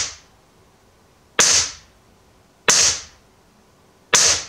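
Daisy Powerline 747 single-stroke pneumatic air pistol fired three times, about a second and a half apart, each shot a loud, harsh pop with a short ring-off.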